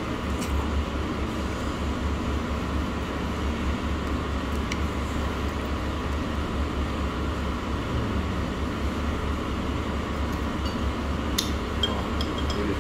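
Steady low rumble of restaurant room noise, with a few light clinks of tableware near the end.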